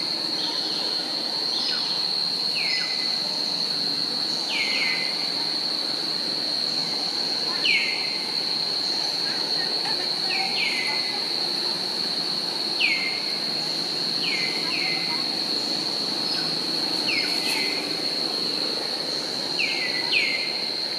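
Steady high-pitched insect drone, with short falling chirp-like calls repeated about every one to two seconds.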